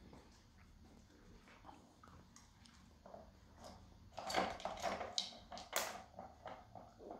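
Dog pushing and turning the rotating plastic tubes of a treat puzzle toy: scattered light plastic clicks, then a run of sharper knocks and rattles about four to six seconds in.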